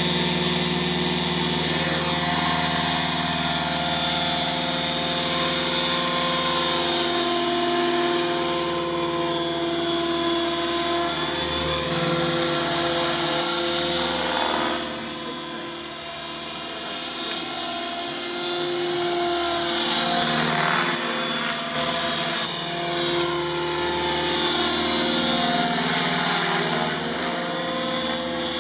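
Radio-controlled model helicopter in flight: a high, steady whine from its motor and rotor, with the pitch sweeping up and down as it manoeuvres and passes, and a little quieter for a few seconds around the middle.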